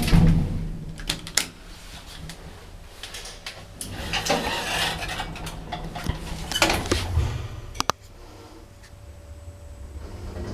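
Lift clanking: a run of metallic clatters and sharp clicks. A low steady hum builds near the end.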